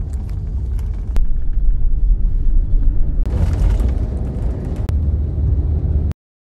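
Low road and engine rumble heard from inside a moving double-decker highway bus, in short clips that change abruptly every second or two, then cut to silence near the end.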